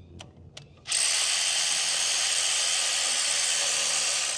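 A DeWalt cordless power tool runs steadily for about three and a half seconds, starting and stopping abruptly, as it runs down the injector hold-down bolt before final torquing. A few light clicks come before it starts.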